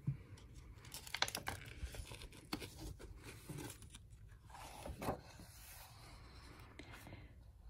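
Pages and cover of a hardcover picture book being opened and turned by hand: a series of short paper rustles and scrapes that die away about five seconds in.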